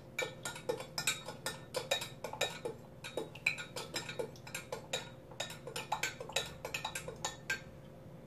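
Metal spoon clinking against the inside of a glass measuring cup while stirring a liquid mixture: rapid, uneven clinks, a few a second.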